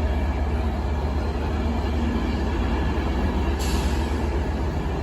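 Class 67 diesel locomotive's two-stroke V12 engine running, a steady low rumble.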